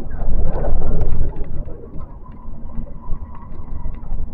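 Running noise heard inside a moving electric train: a steady rumble of wheels on rail, with a louder rush of noise in the first second or so and a faint steady whine.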